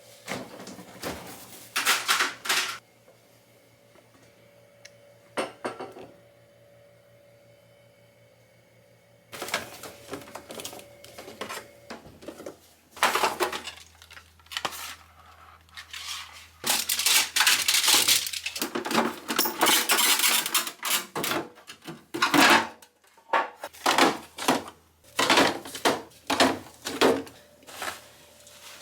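Kitchen containers and dishes being handled: irregular clinks, knocks and rustling as things are picked up and set down. There is a quiet stretch between about three and nine seconds in, and the handling grows busier after that.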